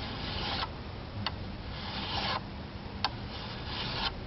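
Fine-toothed file rasping across the side of a Norwalk juicer's metal cutter blade clamped in a vise, sharpening it: three slow strokes about a second and a half apart, each preceded by a sharp click.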